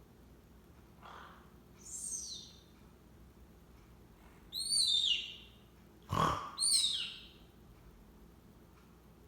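Quaker parrot (monk parakeet) making its sleepy "snoring" sounds: three short high squeaks that fall in pitch, each near a softer breathy sound, the sharpest breath just after six seconds.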